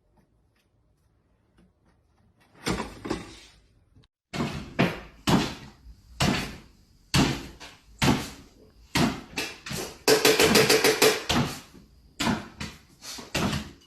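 A series of sharp knocks and bangs, roughly one a second, after a quiet start. Around ten seconds in there is a quick run of rattling knocks.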